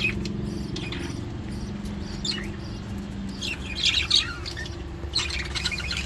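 Budgerigars chirping and chattering in short scattered calls, busiest a little past the middle, over a steady low hum.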